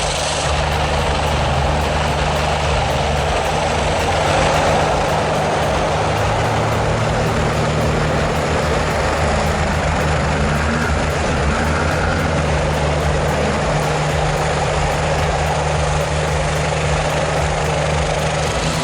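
A heavy vehicle's engine running steadily at an even speed, with a dense rushing noise over it.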